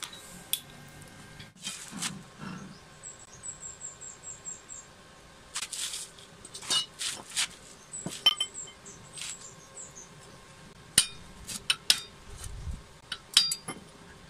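Steel parts of a homemade coconut grater being handled and fitted onto its welded frame: scattered clinks and knocks of metal on metal.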